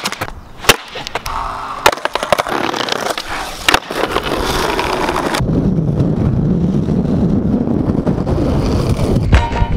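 Skateboard tricks: several sharp clacks of the board popping and landing in the first four seconds, then the wheels rolling steadily with a low rumble over the pavement.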